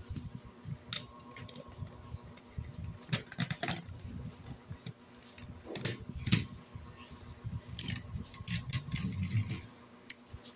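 Plastic Tobot transforming-robot toy parts being handled and snapped together: scattered sharp clicks, some in quick clusters, over soft rubbing and handling noise.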